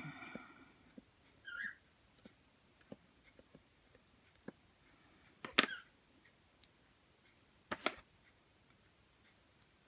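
Plastic Play-Doh tools and pieces clicking and knocking on a tabletop: scattered light taps, two louder clicks about five and a half and eight seconds in, and short squeaks near the start.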